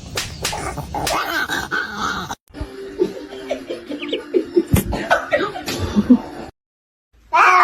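A pet animal's short cries, broken up by cuts between clips. A louder cry starts near the end after a brief silence.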